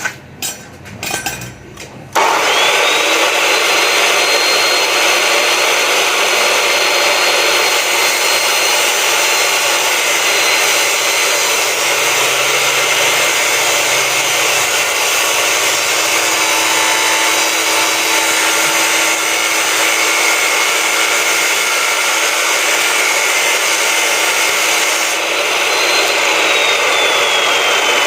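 Electric angle grinder spinning up about two seconds in to a steady high whine and grinding metal, cutting threads off a steel fitting, then switched off and winding down near the end. A few knocks of handling come before it starts.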